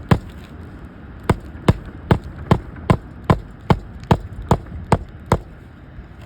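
Hand hammer striking on a shingle roof: one blow, then after a short pause a steady run of about eleven blows, roughly two and a half a second, that stops about a second before the end.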